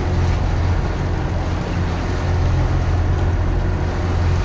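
Steady low drone of a boat under way, with wind and rushing water around the hull.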